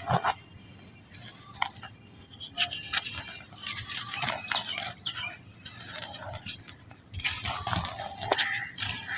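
Balls of soft black sand being crumbled, giving irregular crunches and crackles with a few brief squeaks.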